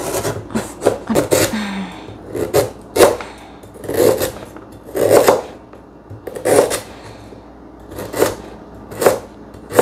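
A cleaver slicing through a fresh galangal root onto a cutting board, one cut about every second, each a short sharp knock. There is a quicker cluster of cuts in the first second or so.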